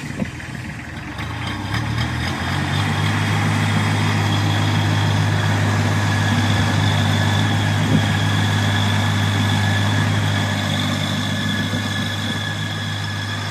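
Kubota D1105 three-cylinder diesel engine of a compact skid steer loader, picking up speed over the first two seconds or so and then running steadily.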